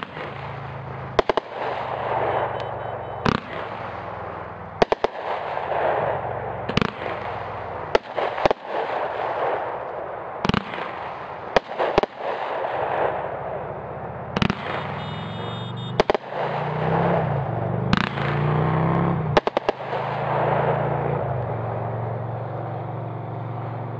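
A 500-gram consumer firework cake firing its shots in quick succession. There are sharp bangs about every second as the tubes fire and the shells break, with a steady hiss of burning comets and stars in between.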